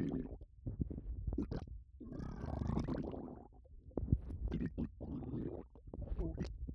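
Bloated, upset stomach gurgling: a long bubbly rumble a couple of seconds in, then a run of short pops and squelches.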